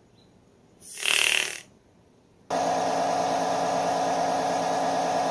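A short hissing burst about a second in. Then, about two and a half seconds in, a steady machine hum with a pronounced whine starts abruptly.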